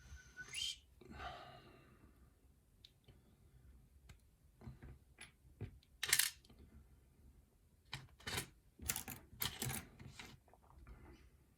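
Scattered small metal clicks and clinks from a picked lock and lock-picking tools being handled, with a louder clink about six seconds in and a run of knocks near the end.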